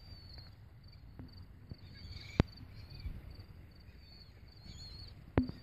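Insects chirping in a steady, evenly pulsing high trill, with a few faint bird calls over the water. Two sharp clicks, about two and a half and five and a half seconds in, are the loudest sounds.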